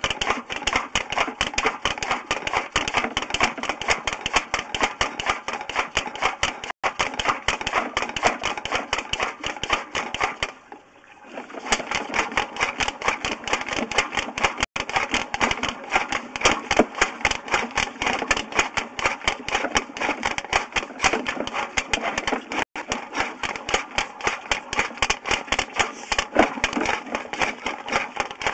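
Sewer inspection camera being fed down the line on its push cable: a rapid, steady clatter of ticks that stops for about a second roughly ten seconds in, then carries on.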